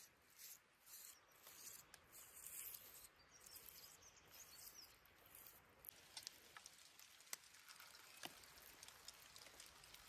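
Faint soft strokes of a spruce sprig brushing egg wash over a ball of dough, about two a second. About six seconds in, the strokes stop, and scattered light ticks follow as black seeds are sprinkled onto the dough.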